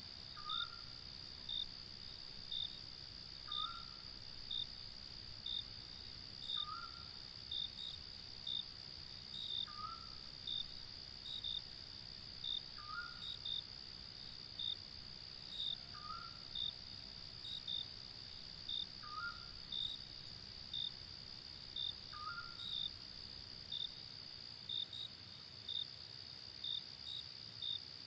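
Night chorus of crickets: a steady high trill under short chirps about once a second. A short call, likely a bird's, repeats about every three seconds, eight times, and stops a few seconds before the end.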